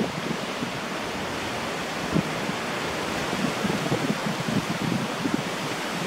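Wind buffeting the microphone: a steady rushing noise with irregular low gusty flutter.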